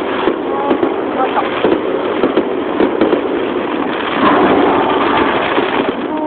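Aerial firework shells bursting in a rapid, dense barrage, with continuous crackling pops. It gets louder about four seconds in.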